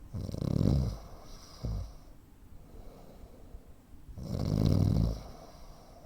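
A man snoring heavily: two loud, low, rattling snores about four seconds apart, each lasting about a second with a hissing breath trailing after it, and a brief low puff between them.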